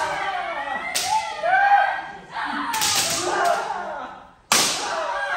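Kendo sparring: bamboo shinai strike armour with sharp cracks, about three times, each followed by a long kiai shout.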